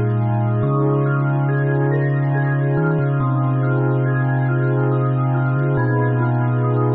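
Music: slow, held chords over a low bass note that shifts a few times, with no beat.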